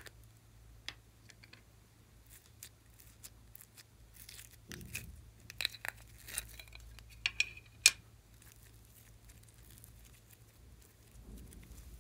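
Yellow foam-bead floam being pried out of a plastic mould: scattered small crackles and clicks, busiest from about four to eight seconds in, with the sharpest click near eight seconds.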